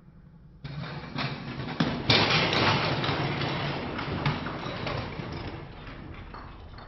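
Crash noise: a sudden burst of noise about half a second in, building to a sharp crack about two seconds in, with scattered clicks and clatter, then slowly dying away.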